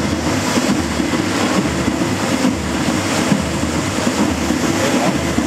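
Loud, steady rush and rumble of the fountain's water jets and spray screen.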